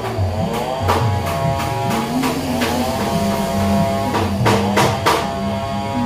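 Background music: a gliding melody over a stepping bass line, with sharp percussion hits.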